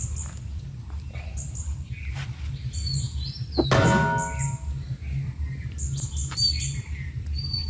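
Small birds chirping over and over in short, high calls over a steady low rumble. A little before halfway, a single brief, loud call with a clear pitch stands out above them.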